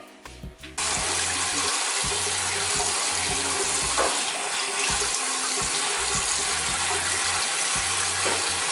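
Bathroom sink tap turned on about a second in, then running steadily into the basin.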